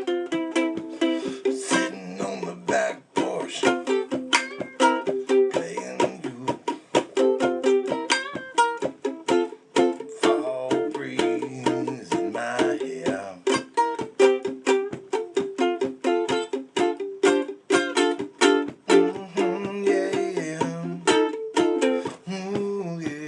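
An acoustic string instrument strummed steadily in a blues, with chord changes and quick rhythmic strokes.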